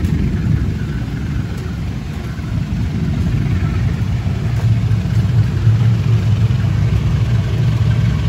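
Diesel-electric locomotive running at low power as it hauls a passenger train in slowly, a steady low rumble whose hum grows a little stronger about halfway through.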